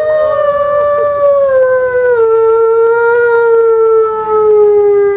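Arctic wolf howling: one long howl, its pitch sliding slowly down over the first couple of seconds and then holding steady.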